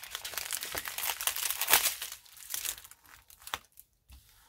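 Thin plastic crinkling and rustling as a strip of sealed plastic bags of diamond-painting drills is handled and set down. It comes in irregular bursts, loudest a little under two seconds in, and thins out near the end.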